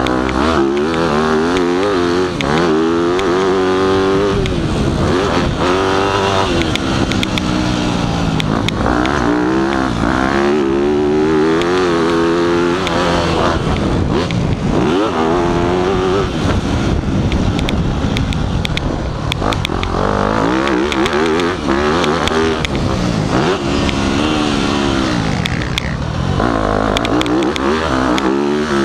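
Dirt bike engine revving hard and falling off again and again as the rider accelerates down the straights and shuts off for corners and jumps, the pitch climbing and dropping every few seconds.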